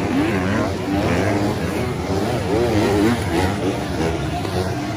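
Several motocross bikes racing past, their engines revving up and down in quick rising and falling pitches as the riders work the throttle, over a steady background din.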